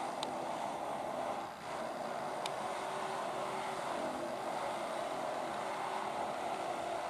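Steady drone of machinery running at a railcar scrapping yard, with a faint hum, broken by two short, sharp clicks, one right at the start and one about two and a half seconds in.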